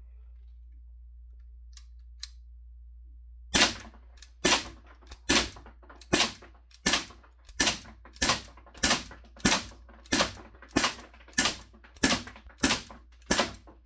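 Daisy 5501 CO2 blowback BB pistol firing a steady string of about fifteen shots, roughly one and a half a second, each a sharp pop of evenly strong level, on one 12-gram CO2 cartridge that is still giving full shots through its fifth magazine. Two faint clicks come a couple of seconds before the first shot.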